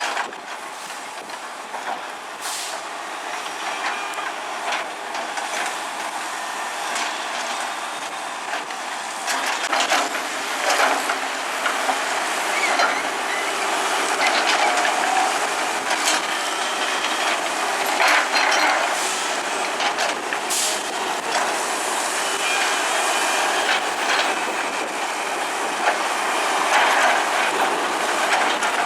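Excavator at work: steady machine noise with frequent sharp clanks and knocks, growing louder after about ten seconds.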